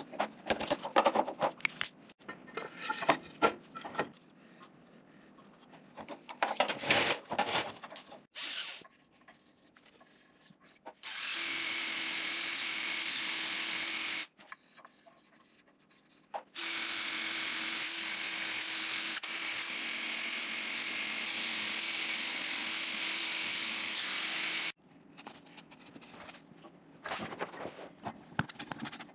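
Irregular scraping strokes of hand work on metal, then a power drill, likely spinning a wire brush inside a planer's steel column, runs steadily for about three seconds, stops, and runs again for about eight seconds before cutting off; more scraping follows near the end.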